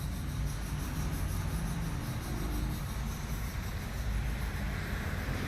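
Steady low hum under a constant hiss.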